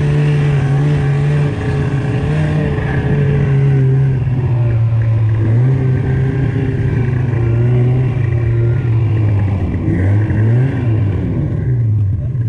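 Snowmobile engine running hard under way, its pitch holding steady and then swinging up and down a few times near the end as the throttle changes.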